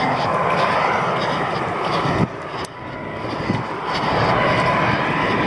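Jet airliner flying low nearby: a steady engine noise with a thin whine, dipping briefly about two seconds in.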